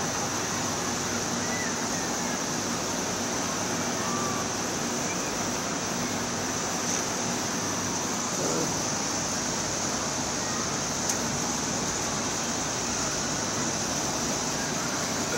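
Steady, even wash of distant road traffic and outdoor city noise heard from high up, with a few faint distant voices.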